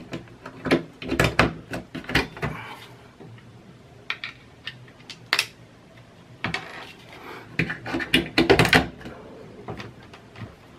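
Plastic plug-in universal power adapters being handled: pulled from a power board, their voltage selector dials turned to a new setting, and pushed back into the sockets. The result is a run of sharp clicks and knocks in several clusters.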